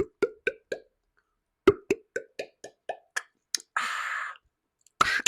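Mouth-made glugging plops imitating drinking from a beer bottle: two runs of quick, evenly spaced pops, then a short breathy hiss.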